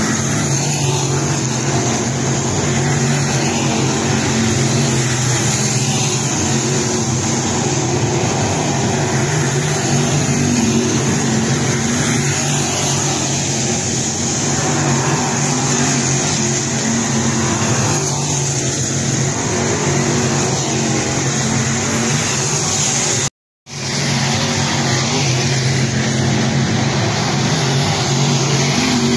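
A field of dirt late model race cars running laps together, their V8 engines loud and steady as they circle the track. The sound cuts out completely for a moment about three-quarters of the way through.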